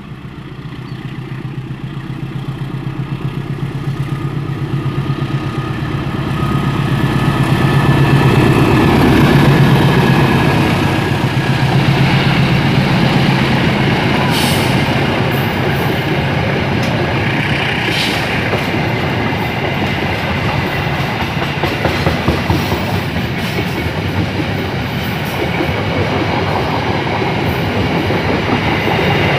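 A diesel-hauled passenger train approaching and passing close by. The locomotive's low engine hum grows louder over the first several seconds and peaks about eight to ten seconds in. The coaches then roll past with a steady wheel rumble and repeated clicks over the rail joints.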